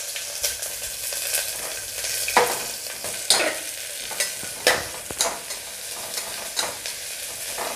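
Sliced onions sizzling in hot mustard oil in a metal pressure cooker, stirred with a metal spatula that scrapes and clinks against the pot every second or so.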